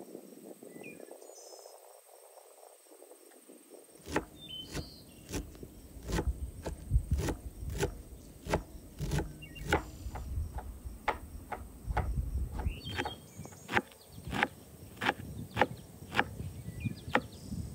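Kitchen knife chopping fresh stinging nettle leaves and stems on a wooden cutting board: a steady run of sharp knocks, about two a second, starting about four seconds in.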